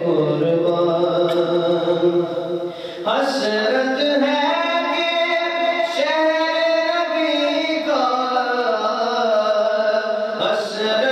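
A solo male voice sings a nasheed into a microphone. He holds long notes that bend slowly in pitch, starting a new phrase about every three seconds, with a jump up in pitch about three seconds in.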